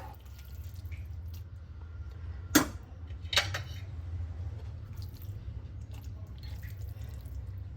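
Two sharp clinks of a utensil against a cooking pan, a little under a second apart, over a steady low hum.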